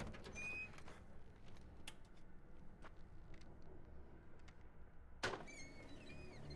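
Low steady rumble with a few faint clicks, then a single sharp knock about five seconds in as a shotgun is laid on a car roof, followed by short high chirps.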